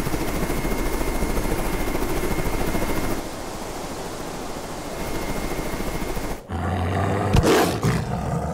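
Layered action-film sound effects: a loud, rapid rhythmic flutter for about three seconds that then eases off. After a sudden drop, a low hum sets in, with several sharp hits near the end.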